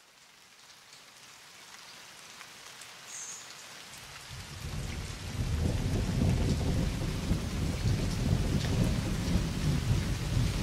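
Rain with a low rumble of thunder, fading in from silence and growing louder from about four seconds in.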